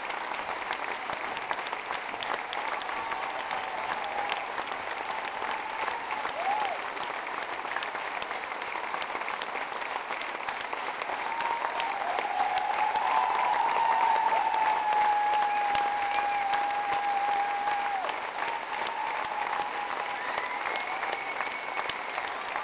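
A theatre audience applauding continuously at a curtain call, with long calls held over the clapping. The applause swells about halfway through.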